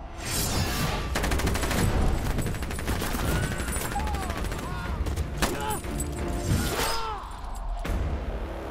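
Film soundtrack of heavy machine-gun fire from truck-mounted guns: a long rapid burst of shots in the first few seconds, then scattered shots with short whistling glides in between, over a low rumble.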